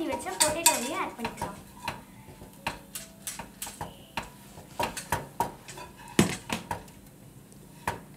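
Metal spoon stirring and scraping fried potatoes in a cooking pan, knocking against the metal in irregular strokes, with a louder knock about six seconds in.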